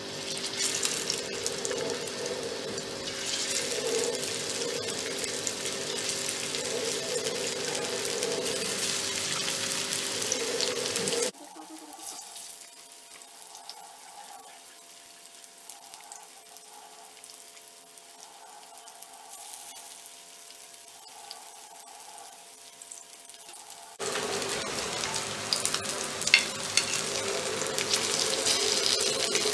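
Alu vadi slices sizzling as they shallow-fry in oil on a flat griddle (tawa). The sizzle drops much quieter about eleven seconds in and comes back louder near the end, when a metal spatula scrapes the pan and turns the pieces.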